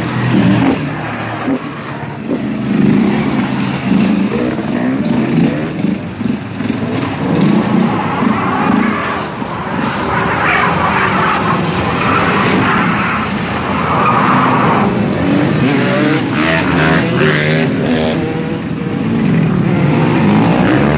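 A car's engine revving hard while its tyres squeal and skid through a burnout. The engine pitch rises and falls again and again.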